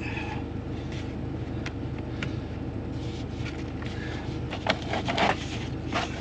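An engine idles steadily in the background, under scattered clicks and a few louder scrapes about three-quarters of the way through as hands work corrugated plastic drainage tile and fittings in a dirt trench.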